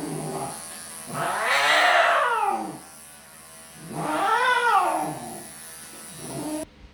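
Elderly longhaired cat yowling twice in long rising-then-falling cries, with a shorter one near the end, protesting while being clipped. Electric grooming clippers whine steadily underneath and cut off suddenly shortly before the end.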